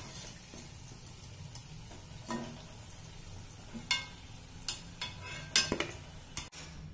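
Momos frying in hot oil in a wok, a faint steady sizzle, with several short clinks and scrapes of a slotted spoon against the pan as the fried dumplings are lifted out.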